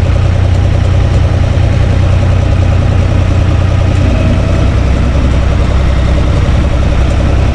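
UTB U445 DT tractor's four-cylinder diesel engine running under way, heard from inside its cab as a loud, steady low drone. Its deep note shifts lower about halfway through.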